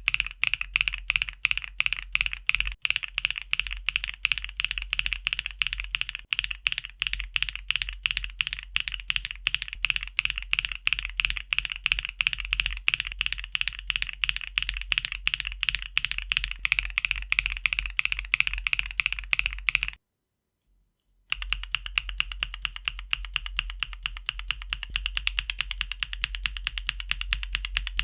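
Continuous fast typing on a mechanical keyboard, a keycap sound test comparing keycap materials. The typing cuts off abruptly about 20 seconds in and, after a gap of about a second, resumes as a quicker, denser run of keystrokes.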